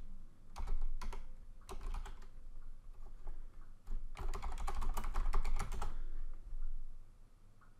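Typing on a computer keyboard: short bursts of keystrokes in the first two seconds, then a quicker, denser run of keys from about four to six seconds in.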